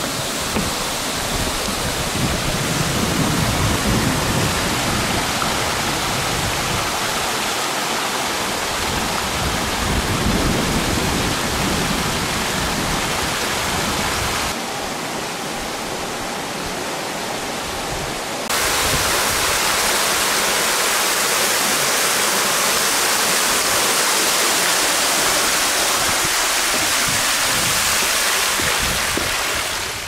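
Heavy typhoon rain hissing steadily, with low gusty rumbling through the first half. It turns quieter for a few seconds in the middle, then comes back louder.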